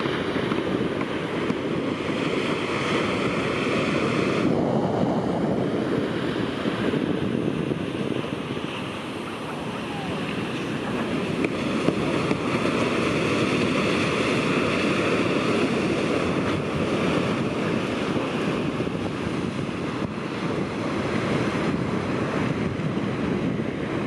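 Shorebreak waves breaking and washing up a sand beach, a steady, continuous rush of surf.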